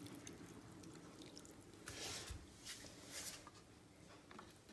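Faint water trickling from a plastic watering can's spout onto potting soil, with a few soft splashes and drips about two to three seconds in.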